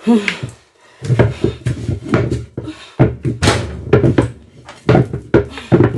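Wooden pestle pounding and working pounded yam in a wooden mortar: repeated irregular dull thumps, several a second, as the soft, near-finished yam dough is worked to take up the added water.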